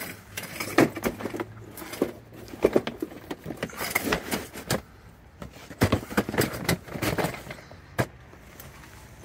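Cardboard packaging of a roof-rack crossbar set being opened and handled, with irregular rustles and sharp clicks and knocks as the metal crossbars and their clamps shift in the box.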